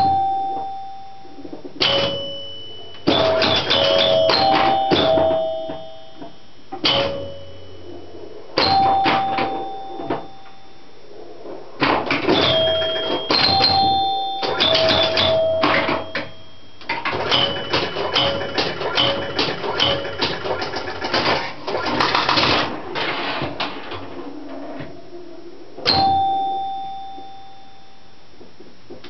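1971 Gottlieb Sheriff electromechanical pinball machine in play: its scoring chimes ring at several pitches, in clusters, over rapid mechanical clacking from the playfield and scoring mechanism. The action comes in bursts with short lulls, the longest dense run a little past the middle, and ends with a single chime.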